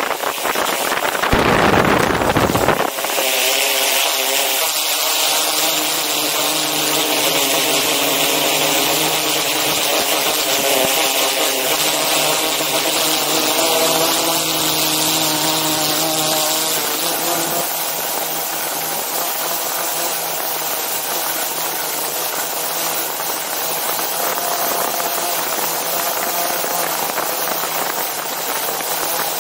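DJI Inspire 2 drone's rotors running in flight, heard from the camera it carries: a rush of wind on the microphone for the first few seconds, then a loud, steady whine of several tones over a hiss, shifting slightly in pitch before settling.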